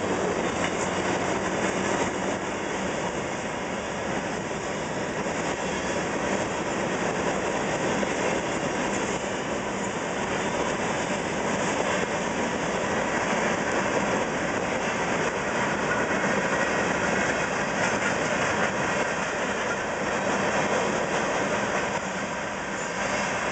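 CSX freight train of phosphate hopper cars rolling past over a grade crossing: a steady noise of steel wheels on rail, easing slightly near the end.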